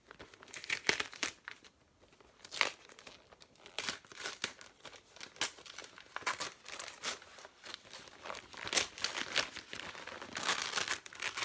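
Gift wrapping paper being torn open and crumpled by hand: irregular, crackly rustling with a short lull about two seconds in.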